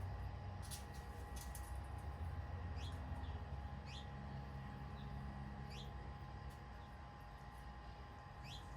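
Garden birds giving short, high chirps that slide downward, one every second or so, over a steady low rumble and a faint steady hum. A few sharp ticks come in the first couple of seconds.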